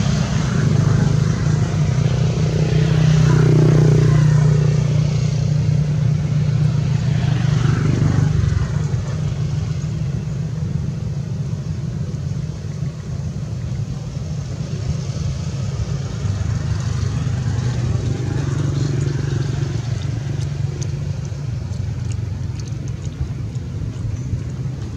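An engine running steadily with a low hum, louder in the first few seconds, with faint voices early on.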